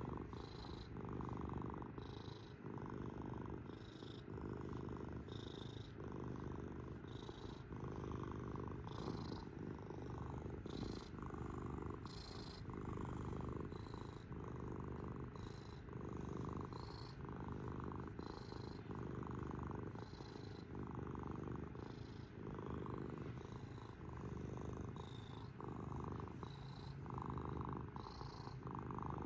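Domestic cat purring continuously and close up, the purr swelling and easing with each breath in and out at about one breath a second.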